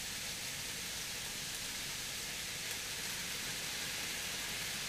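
Vegetables and tempeh sizzling in a wok over high heat, a steady even hiss.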